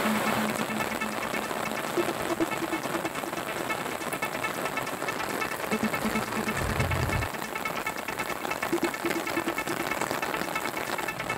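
Heavy rain falling steadily on a road, with a motor vehicle's engine heard now and then and a brief low rumble about two-thirds of the way in.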